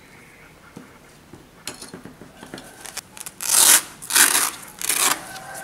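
A fabric blood pressure cuff being wrapped around an upper arm, its hook-and-loop fastener rasping in a series of short scratchy bursts. The three loudest come in the second half.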